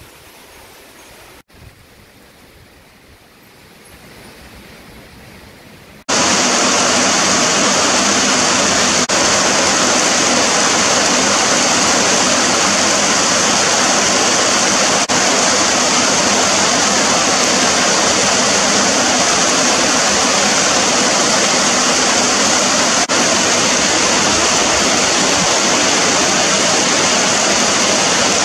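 Wind moving through tall trees, fairly quiet. About six seconds in, it cuts suddenly to a loud, steady heavy downpour of rain.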